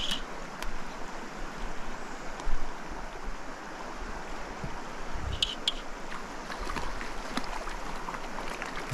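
Shallow creek riffle flowing steadily, a constant rush of moving water, with two brief high chirps and one low thump about two and a half seconds in.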